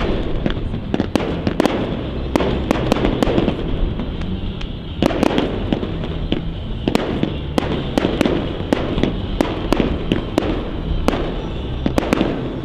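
Fireworks display: a dense, continuous run of shell bursts and crackling, with many sharp bangs a few times a second.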